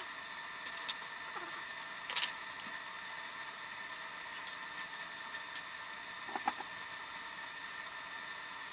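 A few short, sharp clicks and clinks of hand tools and metal engine parts being handled during motorcycle engine assembly, the loudest pair about two seconds in, over a faint steady hum.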